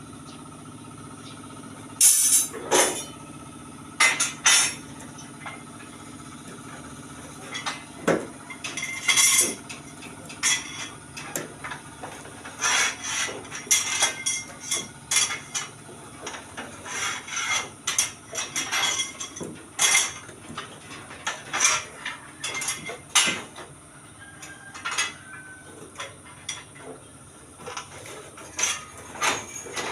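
Irregular metallic clanks and clinks of steel reinforcing bar being worked by hand, as stirrup rings are bent and knocked into shape. The strikes come in uneven clusters over a faint steady hum and begin about two seconds in.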